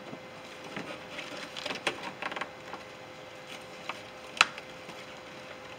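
Crinkling and light clicks of a plastic door moisture shield being handled and peeled back from the truck door frame, with one sharp click about four and a half seconds in.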